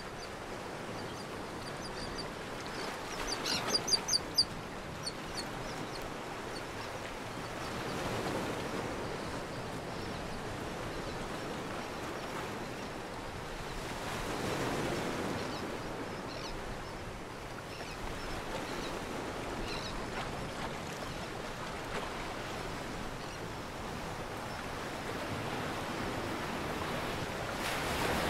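Steady rush of water and wind around a sailboat under way, swelling every few seconds. About three to four seconds in, a bird gives a quick run of high calls, the loudest sound.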